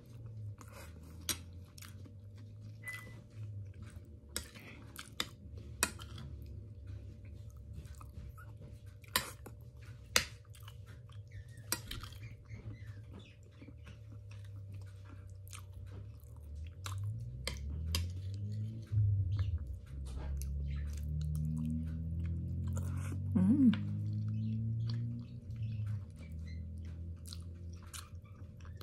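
Close-miked chewing and mouth sounds of a person eating rice and roast pork, with sharp clicks of the spoon. From a little past halfway a low drone comes in, rising and falling in pitch, then fades a few seconds before the end.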